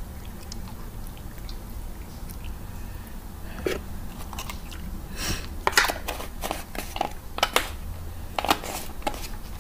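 Lava slime, slick with baby oil, being squeezed and pulled between the hands, giving irregular wet clicks and squelches. It is quiet at first; the clicking starts about a third of the way in and runs on in uneven bursts.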